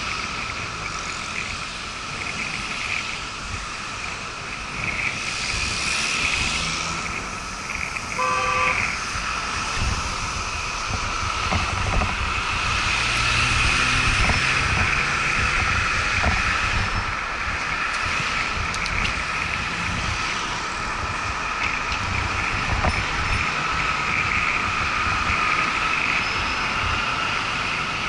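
A car horn blared once, a short blast about eight seconds in, at a cyclist riding in the middle of the lane, over steady traffic noise. A car's engine rumbles past afterwards.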